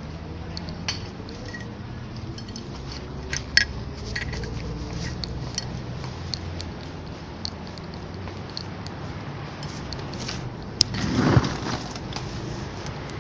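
Dishes and utensils clinking now and then over a steady low hum, with a louder clatter about eleven seconds in.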